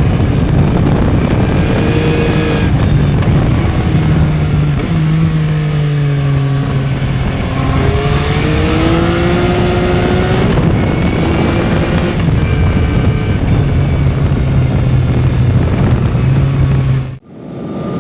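Yamaha XSR 900's three-cylinder engine running under way, heard from on the bike with wind rush; the engine note falls and rises several times with throttle and gear changes. The sound cuts off abruptly near the end.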